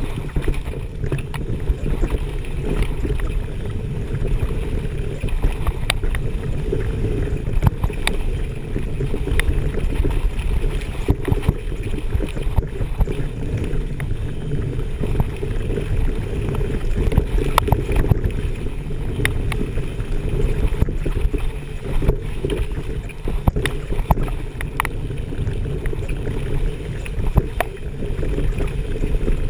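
Mountain bike descending a rough dirt trail at speed: a steady low rumble of wind on the microphone and tyres on dirt, with frequent sharp clicks and rattles as the bike hits bumps.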